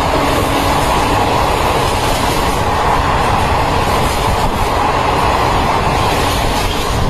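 Indian Railways passenger coaches running through a station at about 110 km/h: a loud, steady rush and clatter of wheels on rail as the train passes close by.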